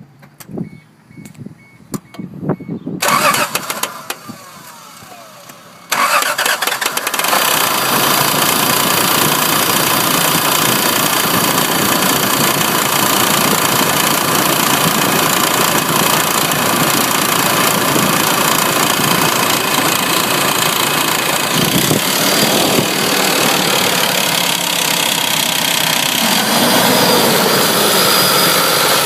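A few short beeps, then a 1994 Honda Passport's engine cranks on the starter for about three seconds, catches about six seconds in and runs steadily. It runs with the clicking noise that the owner thinks comes from a failing timing belt tensioner.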